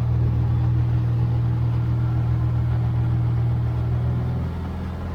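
Cessna 150's Continental O-200 engine and propeller droning steadily in the cabin, a low even hum that drops in level about four and a half seconds in.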